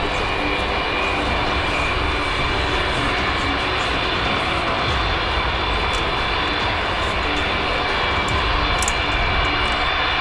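Turbofan engines of an Antonov An-225 Mriya running: a steady rushing noise with a high, steady turbine whine over it.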